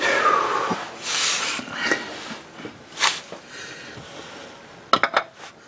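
Spin-on oil filter being handled and screwed onto the engine by hand: irregular bursts of rubbing and scraping, then a quick cluster of sharp clicks about five seconds in.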